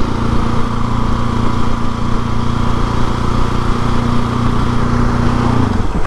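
Husqvarna 701 Supermoto's single-cylinder four-stroke engine running at a steady cruising speed, with wind noise over the helmet camera. Near the end the engine note drops as the throttle is eased off.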